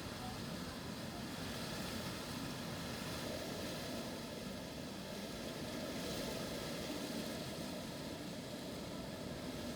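Strong wind blowing, a steady rushing noise with small swells in strength.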